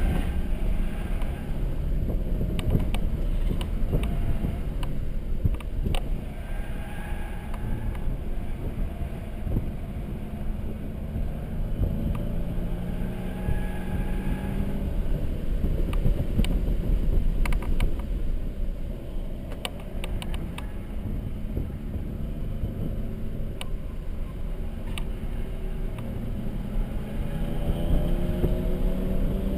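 Mercedes-Benz C300 4Matic engine under track driving, its pitch repeatedly climbing with acceleration and dropping back at shifts and lifts, over steady road noise.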